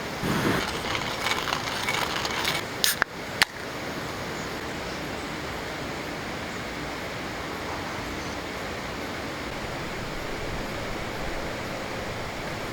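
Clinking and handling noise with two sharp knocks in the first few seconds, then a steady, even rushing noise.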